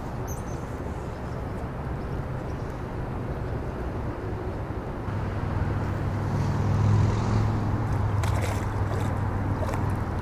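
A low, steady rumble that grows louder about halfway through. Near the end come brief splashes from a hooked snapping turtle thrashing at the water's surface.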